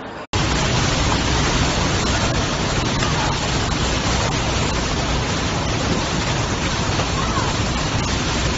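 Storm wind and heavy rain: a loud, steady rush of noise with deep rumbling wind buffeting on the microphone, cutting in abruptly just after the start.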